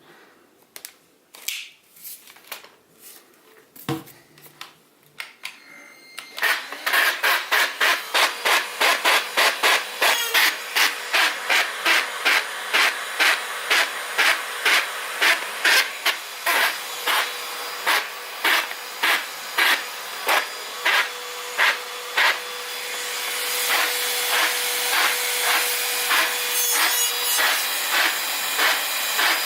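A few faint clicks, then a Dibea C17 portable vacuum cleaner starts about six seconds in and runs with a steady hum and a regular rattle, about two to three knocks a second at first and more spaced later. The motor gets louder near the end. The rattle is the fault being shown.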